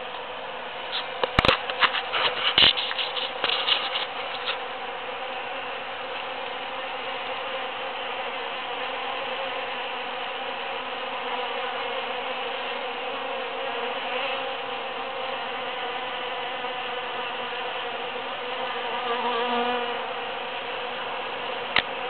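Many bees buzzing steadily together in a dense hum as they forage in large cactus flowers, one buzz swelling louder for a moment near the end. A run of sharp clicks and knocks in the first few seconds is the loudest sound.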